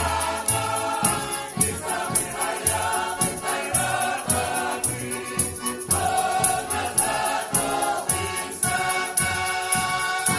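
Folk choir of mixed voices singing a Ukrainian folk-style song over an instrumental accompaniment with a steady beat, about two strokes a second.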